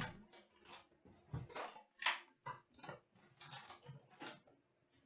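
Faint, irregular rustling and crinkling of cardboard and foil packaging: a box of trading cards being opened and its packs handled.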